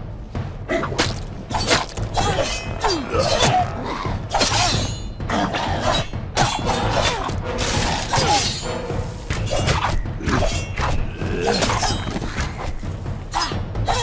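Video game combat sound effects: many sharp weapon hits and impacts in quick succession, with short cries from the sprite creatures being fought, over background game music.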